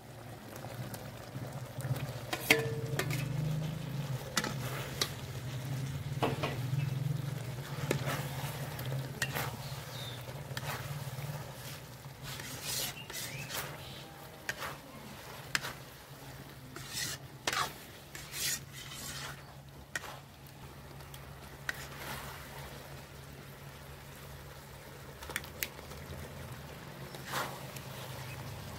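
Paneer cubes and chilli sauce being stirred and tossed in an iron kadai with a perforated metal ladle: irregular scraping and clinking of the ladle against the pan over a low sizzle.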